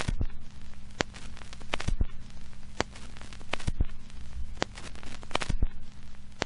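Irregular crackling clicks, a few a second, over a low steady hum.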